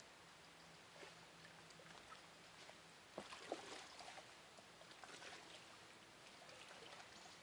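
Quiet riverside ambience with faint water lapping and scattered small clicks and taps, busiest around three to four seconds in.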